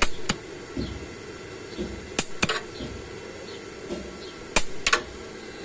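Short, sharp crackles of an electric welding arc striking as tack welds are laid on loose body sheet metal, in three pairs about two seconds apart, over a steady low hum. The tacks fix the loose sheet metal that rattled over bumps.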